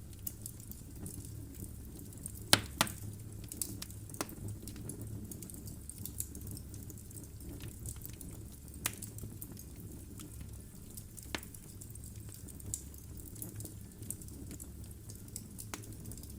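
Wood fire burning in a fireplace: a low steady rumble of the flames with irregular crackles and pops from the logs, the sharpest pair of pops about two and a half seconds in.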